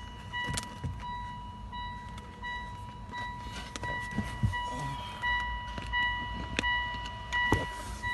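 Busy workshop background: an electronic beeper sounding over and over at one high pitch, with scattered clicks and knocks and a low rumble.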